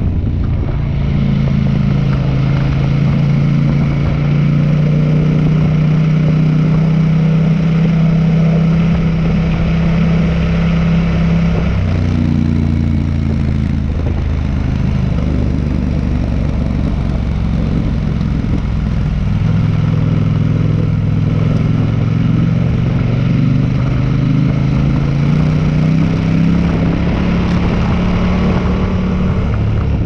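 Motorcycle engine running steadily while riding a gravel road. Its pitch drops about twelve seconds in, then climbs slowly again through the second half.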